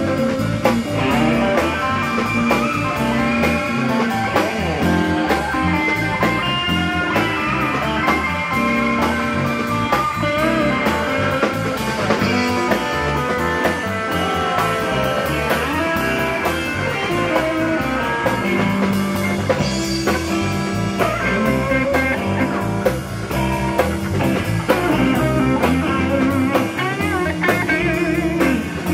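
Live rock band playing an instrumental stretch: electric guitars over a drum kit, with no singing.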